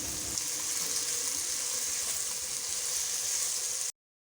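Beef with tomatoes, carrots and capsicum sizzling in a cooking pot: a steady hiss that cuts off suddenly near the end.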